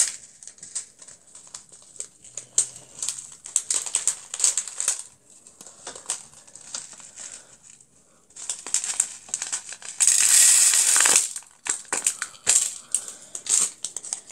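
Crinkling and clicking of a small plastic packet of beads being handled and emptied into a toy slime maker's compartment, with a louder rush lasting about a second about two-thirds of the way through.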